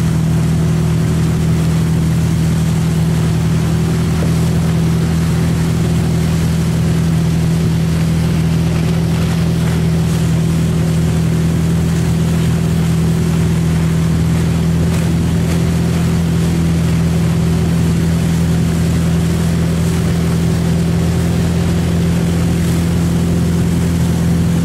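A wake-surf boat's engine running at a steady speed with a constant low drone, over the hiss of the churning wake.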